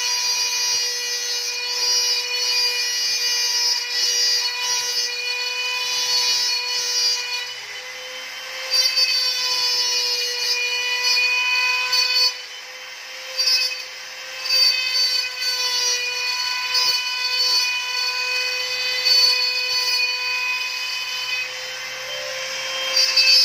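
CNC router's spindle motor running with a steady high whine while its bit engraves lettering into wood, over a scratchy cutting rasp. The sound dips briefly a few times partway through.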